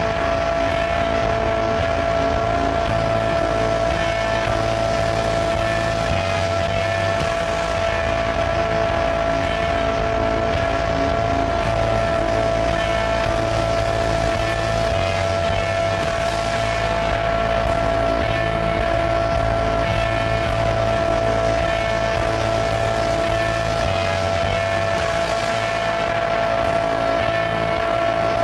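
Electronic drone music played from a laptop: two steady held high tones over a low layer that shifts in blocks every few seconds.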